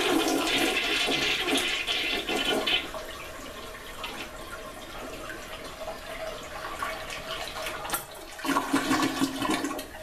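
An old toilet flushing: a loud rush of water that eases after about three seconds, runs on more quietly, then surges again near the end as the bowl drains. It is a slow flush, which the owner says takes too long and sometimes only partly flushes.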